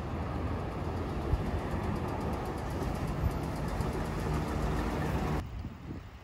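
Steady rumbling noise of a vehicle in motion, which drops off abruptly to a quieter hiss about five seconds in.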